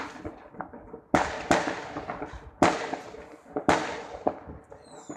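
Fireworks bursting in a series of sharp bangs about a second apart, each trailing off in a fading hiss, with a few smaller pops between them.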